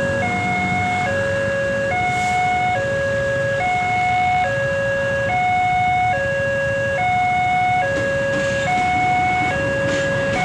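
Railway level-crossing warning siren sounding a steady two-tone high-low alternation, switching pitch a little under once a second. Its voice is hoarse, almost like laughing.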